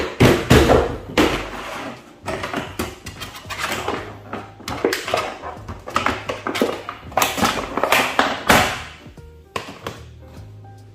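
Stiff clear plastic blister packaging crinkling, scraping and knocking against a cardboard box as a boxed RC truck in its plastic tray is lifted out, in irregular bursts that die down near the end. Background music plays underneath.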